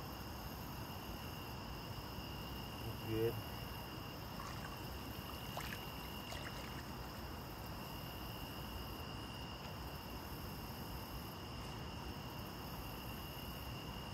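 Steady chorus of night insects, crickets or katydids, over faint water sloshing and dribbling as a large flathead catfish is held upright in shallow water to recover before release. A brief low-pitched sound about three seconds in is the loudest moment.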